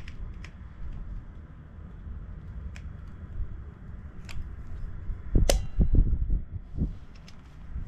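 Manual caulking gun clicking several times at irregular intervals as its trigger is squeezed to lay adhesive. The loudest click comes about five and a half seconds in, followed by a few dull knocks, over a steady low rumble.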